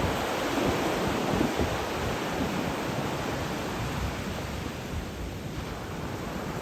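Sea waves washing on the shore: a steady rushing noise, easing a little past the middle, with wind in the background.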